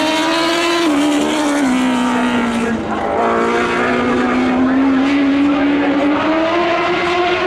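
Lightning sprint car engine running at speed. Its pitch falls over the first three seconds and then climbs slowly again.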